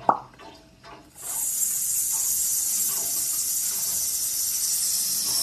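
A short click, then about a second in a loud, steady high-pitched hiss starts and holds.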